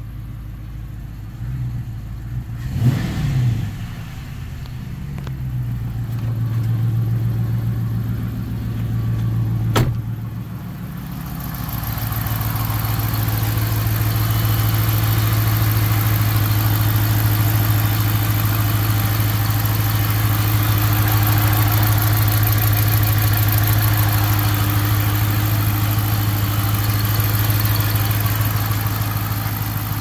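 A 5.7 L Hemi V8 idling steadily, with one brief rev about three seconds in, heard first from inside the cabin. A sharp click comes about ten seconds in, then the engine is heard closer and louder from the open engine bay, running steadily after the throttle body connector repair.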